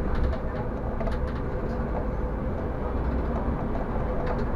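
City bus driving along a street, heard from the driver's cab: a steady engine and road rumble with a faint constant whine and a few light rattles from the cab.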